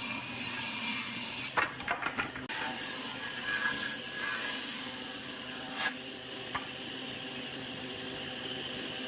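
Combination jointer-planer running with a steady hum while a pine board is fed over its cutterhead: a few sharp knocks about a second and a half in, then a cutting hiss for about three seconds that stops suddenly, leaving the machine running on its own.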